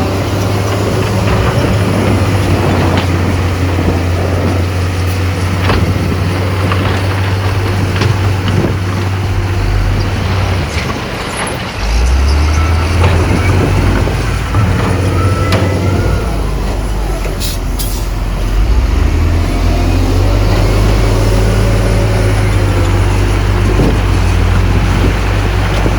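Heavy diesel engines of a dump truck and bulldozer running at a sand fill. The engine note drops about halfway through and returns at a different pitch, and scattered clanks sound throughout.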